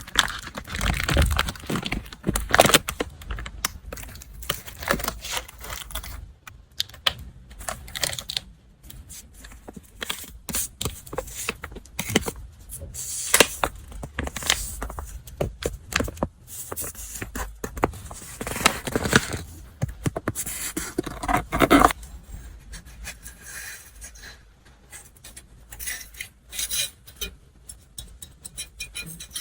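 Hands unwrapping a parcel: paper packaging rustling, crinkling and tearing in irregular bursts, with scattered small taps and clicks.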